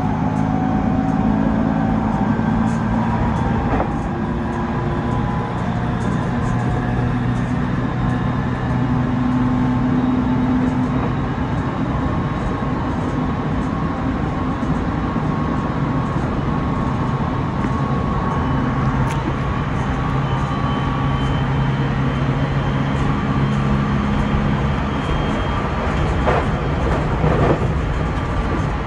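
Train running along the track, heard from inside the rear cab: a steady rumble of wheels on rail under a drive hum that shifts in pitch, with a couple of sharper clacks near the end.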